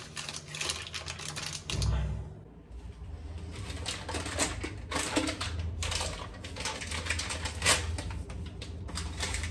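Crinkling plastic wrapping of a hotel dental kit being handled and opened: a rapid patter of crackles and clicks, with a dull thump about two seconds in.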